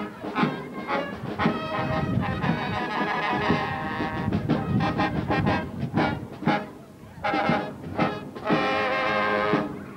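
Brass band of trombones, euphoniums and tubas playing as it marches, with held brass chords over a steady beat about twice a second.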